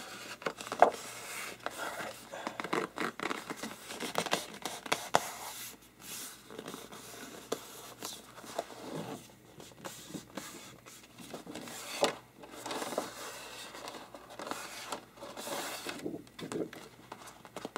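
Posterboard being handled by hand: palms rubbing and pressing along the board and sweeping across it, then the sheet lifted and flexed, giving irregular scraping and crinkling with a few sharp taps, loudest about a second in and again about twelve seconds in.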